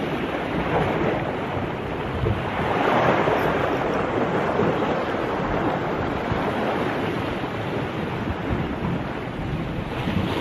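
Sea waves washing against rocks at the water's edge, with wind rumbling on the microphone; the wash swells louder about three seconds in.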